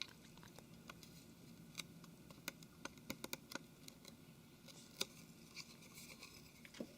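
Faint, scattered small clicks and taps of small plastic phone parts being handled and fitted, as a home key is set into a phone's front housing.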